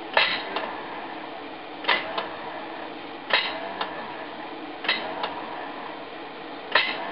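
Johnson 28 outboard's electric starter pressed in five short bursts, each a sharp solenoid click and a brief spin that ends in a second, smaller click. The starter spins without engaging the flywheel, typical of a dry, sticking Bendix drive.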